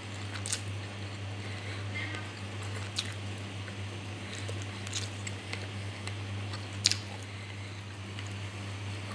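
Thick stew simmering in a pan, with a few scattered pops and clicks over a steady low hum.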